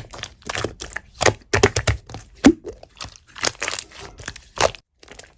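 Slime being squeezed and pressed by hand, giving irregular crackling pops a few times a second, with a short pause near the end.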